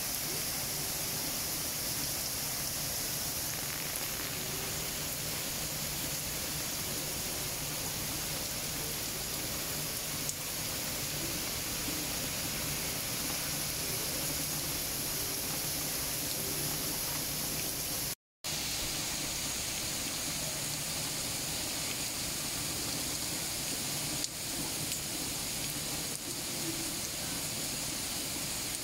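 Heavy rain pouring steadily, a dense even hiss, with a brief dropout in the sound about two-thirds of the way through.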